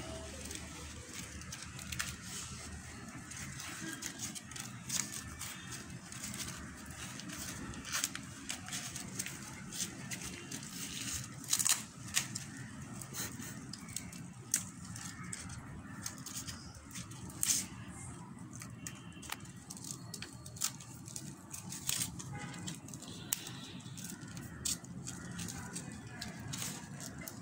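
Dry corn husks being torn and peeled off the ears by hand, giving irregular crackling and tearing snaps, with a few louder ones about twelve and eighteen seconds in.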